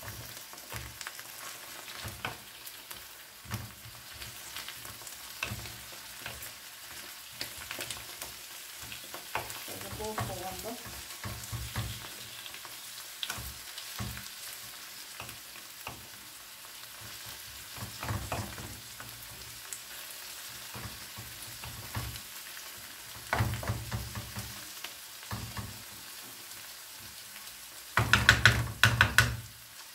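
Sirken greens and onions frying in oil in a pan, sizzling steadily while being stirred. A utensil scrapes and knocks against the pan in repeated bursts, loudest near the end.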